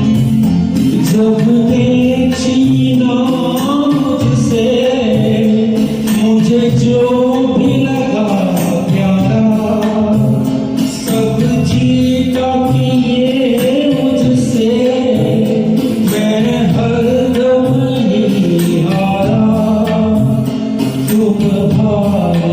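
A man singing a Hindi ghazal in a slow, held melody over instrumental accompaniment with light percussion.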